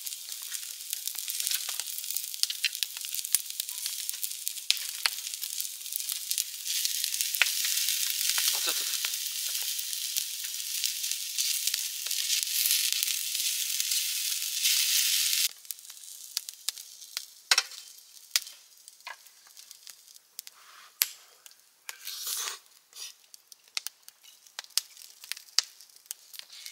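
Food frying in a hot pan: a dense sizzling hiss full of crackles that grows louder about six seconds in, then cuts off abruptly around the middle, leaving scattered pops and crackles.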